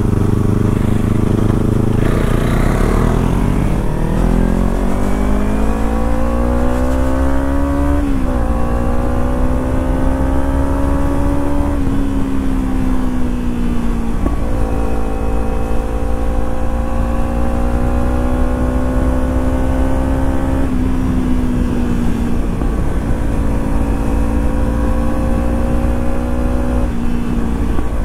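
Kawasaki Ninja 300 parallel-twin engine pulling away under throttle, its note climbing steadily for several seconds, then running on with several sudden small dips in pitch. Low wind rumble on the rider's microphone underneath.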